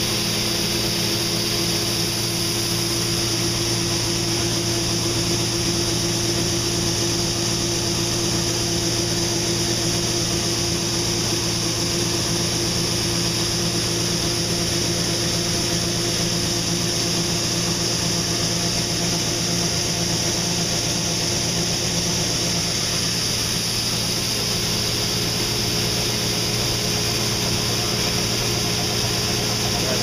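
Case IH combine running steadily: an even engine drone with a steady high hiss over it.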